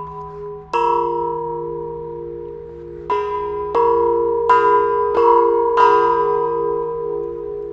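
Tall metal tubular chimes of an outdoor chime sculpture struck with mallets: one strike about a second in, then five more in quick succession from about three seconds in. Each chime rings on, and the tones overlap into a sustained chord.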